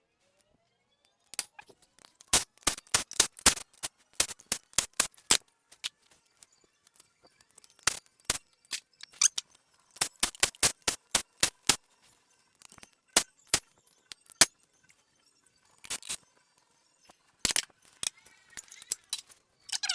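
Irregular runs of sharp metallic clicks and clinks from hand tools and bolts on an engine, as the rocker cover bolts are undone.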